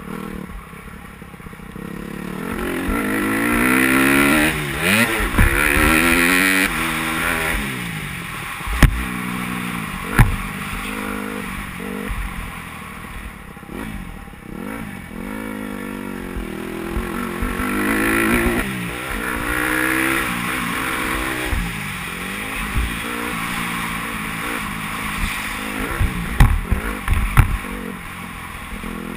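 Dirt bike engine revving up hard and backing off again and again as the bike accelerates down straights and slows for corners, heard from a camera on the rider's helmet. There are two sharp knocks near the middle and several more near the end.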